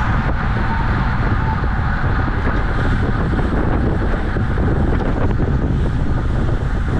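Steady wind noise buffeting the microphone of a camera on a bicycle moving at racing speed.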